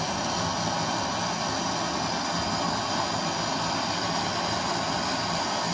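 MAP-gas torch flame burning with a steady hiss, heating a copper capillary tube at the filter drier for brazing.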